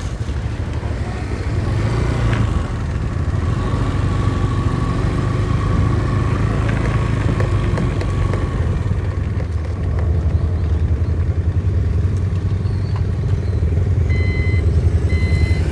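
Honda scooter's engine running with road and wind noise as it rides. Near the end a railway level-crossing warning signal starts beeping, about once a second.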